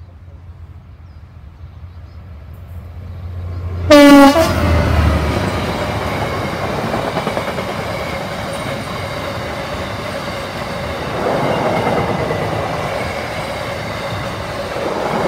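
Class 66 diesel locomotive's two-stroke V12 engine growing louder as it approaches, then one short, very loud blast of its horn about four seconds in. The train's freight wagons then roll past with steady wheel and rail noise.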